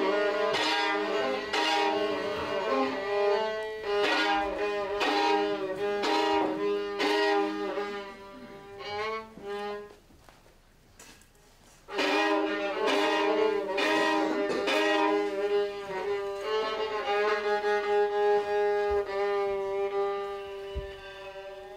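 Violins playing in short, strongly bowed strokes. They break off for about two seconds near the middle, then return with a long held note under shorter notes.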